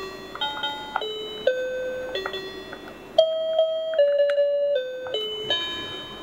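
Electronic beeping notes from a children's toy learning tablet in music mode, its built-in piano keys being played: a string of single notes stepping up and down in pitch, with a purer-sounding run of notes about three seconds in.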